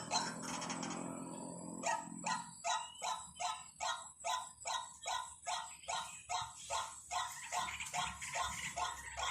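White-breasted waterhen call played as a decoy: a rapid, regular string of short harsh notes, about three a second. It starts about two seconds in, after a low hum.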